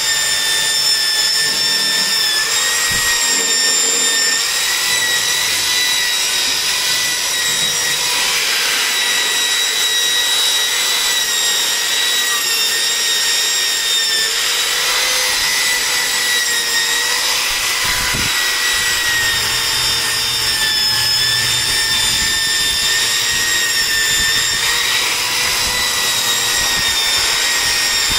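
Corded electric drill spinning a round bristle brush, its motor giving a steady high whine that wavers slightly in pitch as the brush is pressed against the ceramic washbasin and the metal tap, with the hiss of the bristles scrubbing.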